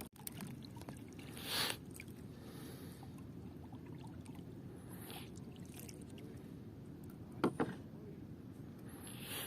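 Water sloshing around a small boat over a steady low rumble, with a few short splashes or swishes; the sharpest comes about seven and a half seconds in.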